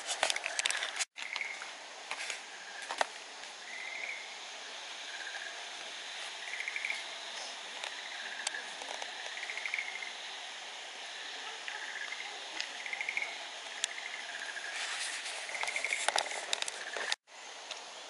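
Outdoor woodland ambience: a steady hiss with short trilled chirping calls repeated about once a second. Sharp clicks cluster near the start and near the end, and the sound cuts out for an instant twice.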